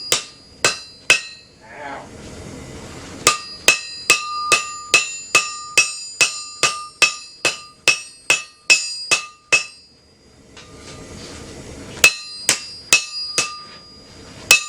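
Hammer blows on hot steel over an anvil, each strike ringing: a few blows, a pause, then a long fast run of about two to three blows a second, a pause, and another run near the end. A steady rushing hiss fills the pauses.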